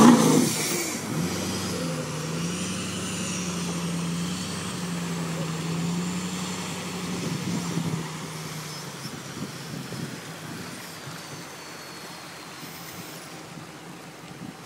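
Pickup truck engine revving hard at the start, then settling to a steady run and fading away after about eight seconds.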